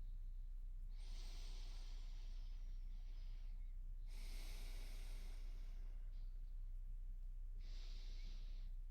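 A woman breathing slowly and audibly during a guided breathing exercise: three long, airy breaths about a second or two each, over a steady low hum.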